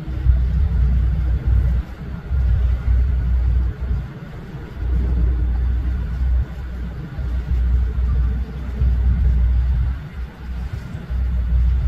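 Low, gusty rumble of wind buffeting the microphone, swelling and dropping away every second or two.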